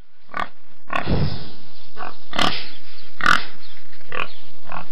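Domestic pig grunting in a run of short grunts, about seven in five seconds, fading in at the start.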